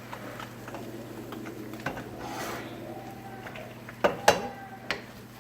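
Kitchen pans and utensils knocking and clinking: scattered light clicks, a brief scrape-like swell about two seconds in, then three sharp clanks near the end.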